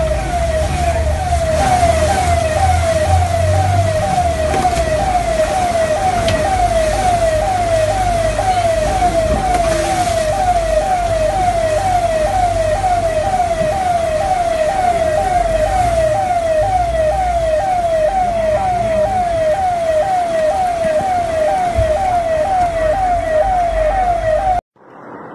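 A siren sounding a fast, repeating yelp, about two pitch sweeps a second, over a low rumble; it cuts off suddenly near the end.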